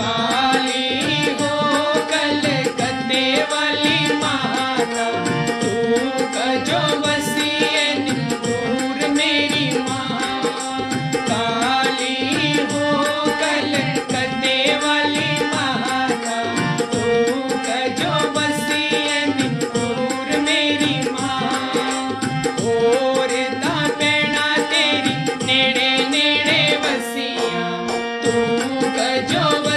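Hindi devotional bhajan: a male voice singing over harmonium, with a steady percussion rhythm underneath.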